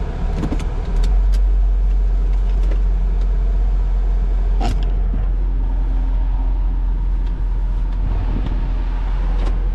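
Cabin sound of a 2002 Chevrolet Corvette C5 being driven: its 5.7-litre LS1 V8 and the road give a steady low rumble that grows louder about a second in. A single sharp click comes near the middle.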